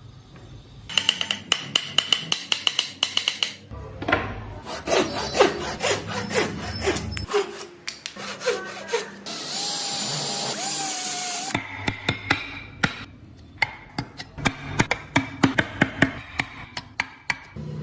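Hand tools working wood: quick repeated rasping and sawing strokes across a series of short clips. A small power tool whines steadily for about two seconds in the middle.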